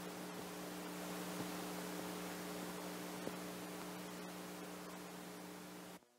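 Cassette tape playback with nothing recorded: steady tape hiss with a low mains hum and two faint clicks, cutting off suddenly near the end.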